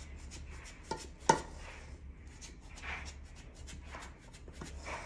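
A thin cake-release tool scraping and clicking against the inside wall of a tube cake pan as it is worked around the edge to loosen a cooled angel food cake. Irregular small clicks and scrapes, with one sharp tap about a second and a half in.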